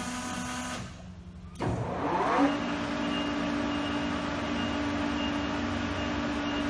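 LeBlond engine lathe's spindle and headstock gearing running with a steady whir. About a second in it cuts out briefly, then spins back up with a rising whine and settles into a steady run at a slightly higher pitch, as the lathe is shifted to its next spindle speed.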